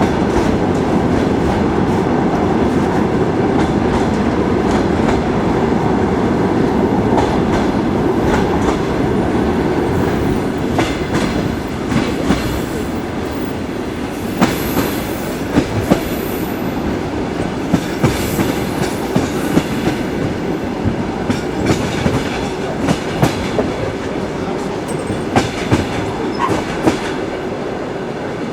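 Train wheels running on rails: a steady rumble, then from about halfway through an irregular clatter of sharp clicks and knocks as the wheels cross rail joints.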